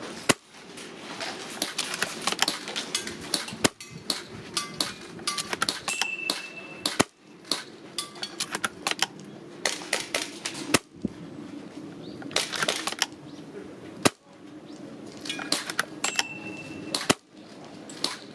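Spring-powered VSR-ONE airsoft bolt-action sniper rifle firing six shots, one every three to four seconds, each a sharp snap. Between the shots come the smaller clicks and clatter of the bolt being worked.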